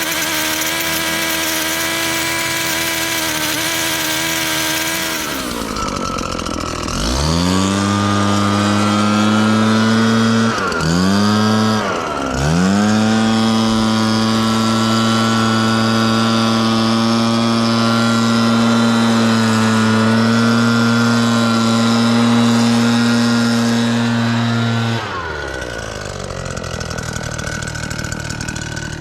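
Small petrol-engine landscaping power tool: running steadily at first, then revved up to high speed about seven seconds in, with two brief dips in speed, held at full throttle, and dropping back to a lower speed a few seconds before the end.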